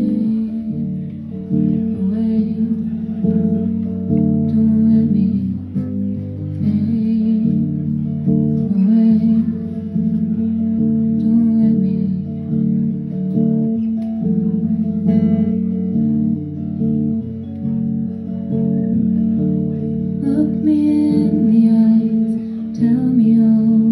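Solo Telecaster-style electric guitar played live through an amplifier, with chords strummed and left ringing, growing busier near the end.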